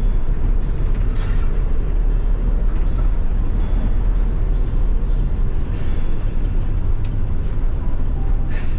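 Tour bus running on the road, a steady low rumble of engine and road noise, with a short hiss about six seconds in and another near the end.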